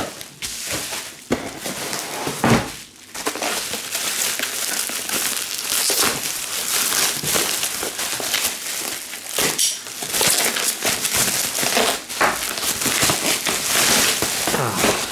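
Bubble wrap crinkling and rustling with fine rapid crackles as hands handle it and pull it off a packed item, with a short lull about three seconds in.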